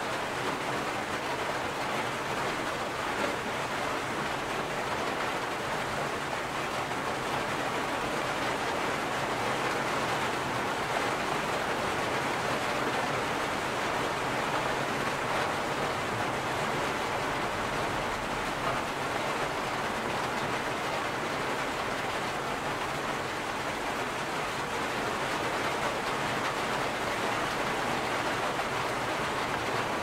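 Steady rain, falling without a break or any single loud drop.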